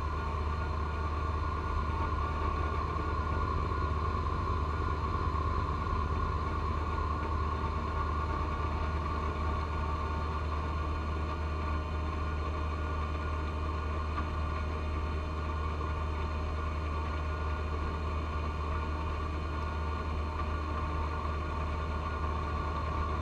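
John Deere 1025R subcompact tractor's three-cylinder diesel running steadily under load while its front-mounted 54-inch snowblower throws heavy wet snow, a low engine drone with a steady high whine over it.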